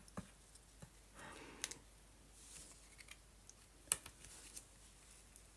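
Faint paper rustling and small clicks from hand-stitching a torn scrap of paper with an embroidery needle and thread, with one sharper click about four seconds in.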